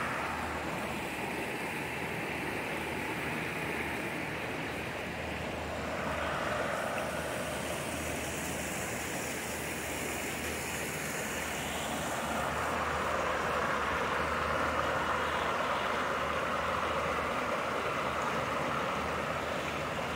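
Shallow rocky creek rushing and splashing over stones in a steady wash, which grows a little louder partway through.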